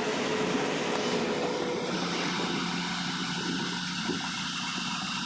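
Steady engine and road noise of a moving bus heard from inside the passenger cabin, with a low steady hum under it and a higher whine that fades out about two seconds in.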